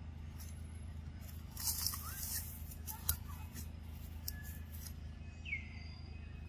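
Crackling and rustling of dry leaf litter and plant matter as a monkey forages and handles things on the ground. The crackles bunch together in the first half, a few single ticks follow, and a brief high chirp falls in pitch after about five seconds.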